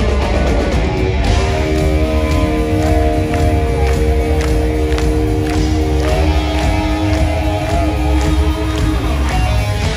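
Hard rock band playing live, heard from the audience: electric guitars, bass and drums at full volume, with long sustained notes held over a steady drum beat.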